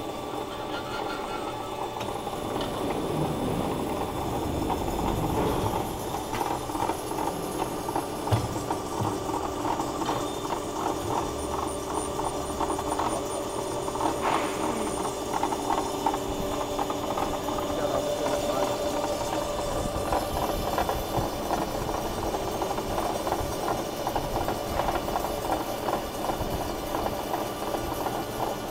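Hydraulic automatic circular sawing machine running: a steady mechanical hum with a dense, fast rattle, and a couple of sharp knocks, one about eight seconds in and one about fourteen seconds in.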